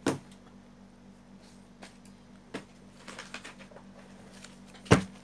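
Books being handled: a knock as a book is put down, light rustling and handling noises, then a sharp knock about five seconds in as the next book is picked up.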